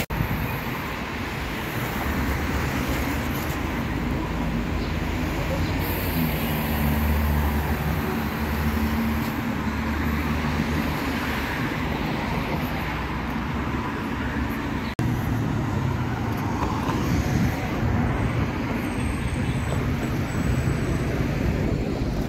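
City street traffic: a steady wash of passing cars and engines, with one vehicle's engine hum passing close from about six to ten seconds in. The sound changes abruptly about fifteen seconds in.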